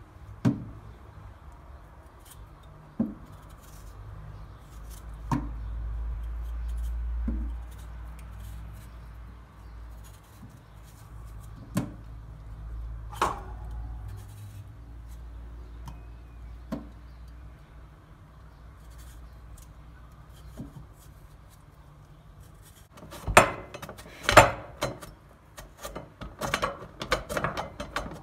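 Potato being peeled with a metal vegetable peeler over a stainless steel sink: soft scraping broken by scattered clicks and knocks of the peeler on the steel. Near the end comes a quick run of louder rasping strokes as the potato is sliced on a box grater's slicing blade.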